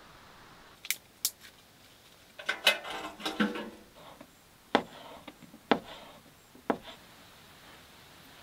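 Kitchen knife cutting food on a plastic cutting board: a couple of light clicks, a short busy stretch of scraping and clicking, then three separate sharp knocks of the blade on the board about a second apart.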